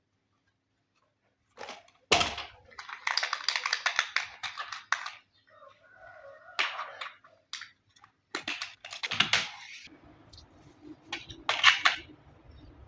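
Crinkling and rustling of packaging being handled, in irregular bursts of quick crackles with short pauses between them.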